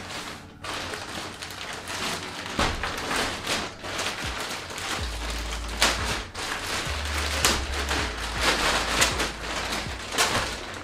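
Plastic packaging crinkling and rustling as a backpack is pulled out of it, a dense run of irregular crackles.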